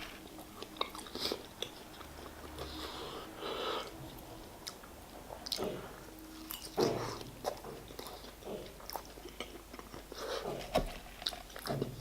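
Close-up chewing and biting of truffle fries topped with cheese and garlic, with irregular wet mouth clicks and soft crunches.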